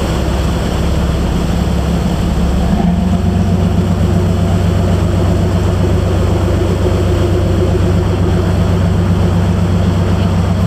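Motorboat engine running steadily under way, a low drone over the rush of water, with the engine note shifting about three seconds in.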